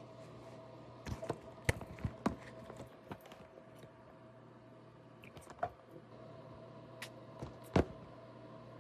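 Scattered light clicks and taps over a steady low hum, in a small room: a quick cluster about a second in, then a few single sharper taps later on.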